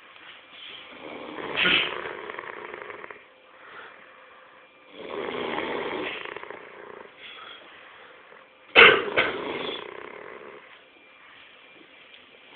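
Snoring: three long, rough breaths, the last one starting suddenly and loudly about nine seconds in.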